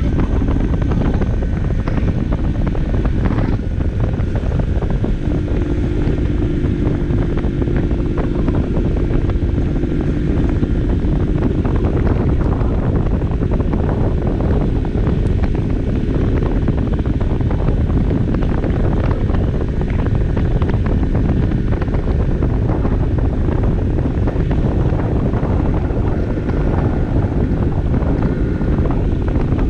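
Barton Volcano 50cc moped's small engine running steadily while riding, heard from on board under heavy wind rush on the microphone, which is the loudest part.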